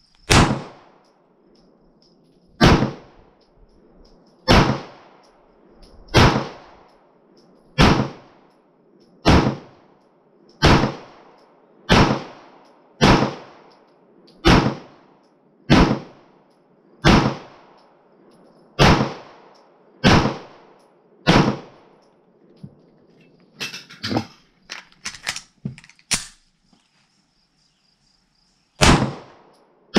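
Double-action autoloading pistol fired at a steady pace, about fifteen shots spaced a second to a second and a half apart, each with an echoing tail. Then comes a short run of metallic clicks and clatter, and one more shot near the end. Crickets chirp steadily in the background.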